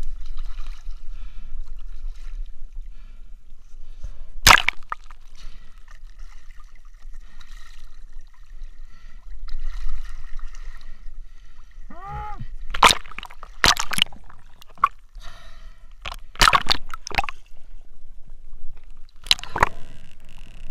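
Shallow sea water sloshing and splashing as feet kick in it, with a series of sharp splashes, the loudest about four seconds in and a cluster over the last eight seconds. There is a short gurgle a little after twelve seconds.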